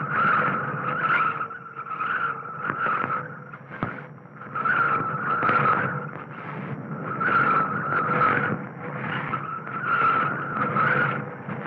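Car tyres squealing again and again as a car swings through tight hairpin turns on a steep, winding street. Each squeal swells and fades in about a second, over a low rumble.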